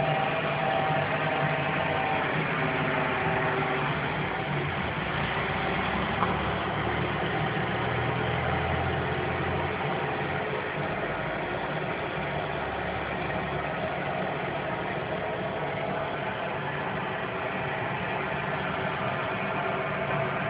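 Steady, unchanging drone of unidentified origin, with several held low and middle tones over a hiss; a mysterious noise that has been sounding for about half an hour.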